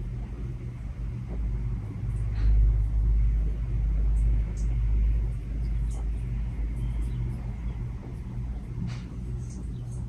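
Fanimation Enigma ceiling fan with its FDK2100 motor running: a steady low hum under a rumble of moving air from the blades' draft buffeting the microphone. The rumble swells a couple of seconds in and eases after about five seconds.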